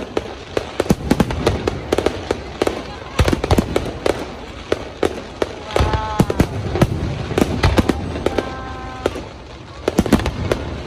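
Fireworks display: a dense, irregular run of sharp bangs and crackling bursts, several a second.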